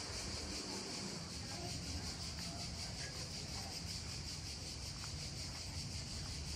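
Insects chirring steadily: a high-pitched, rapidly pulsing drone over a faint low background rumble.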